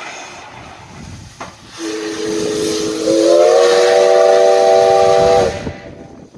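Steam locomotive whistle sounding a chord for about three and a half seconds: two lower notes start about two seconds in, higher notes join a second later, and it cuts off sharply. Steam hiss runs underneath.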